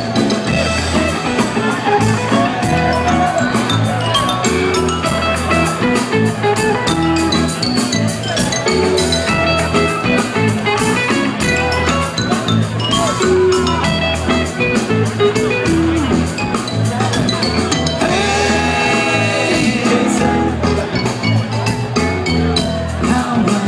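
A rock band playing live, heard from within the audience: drums keep a steady beat under bass and other instruments.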